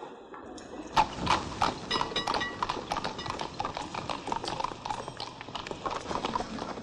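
Horse-drawn carriage, its horse's hooves clip-clopping on pavement, coming in about a second in.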